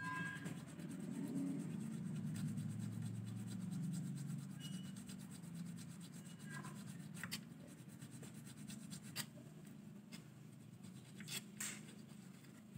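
Small file rubbing back and forth in a bass guitar's nut string slot, cutting the slot deeper to lower the string action at the nut. The rasping is stronger in the first few seconds and then fades, with a few light clicks near the end.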